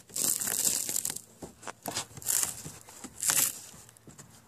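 Fibreglass deck skin of a sailboat being peeled up by hand off its wet plywood core, tearing away in rasping bursts: a long one over the first second, then three shorter ones.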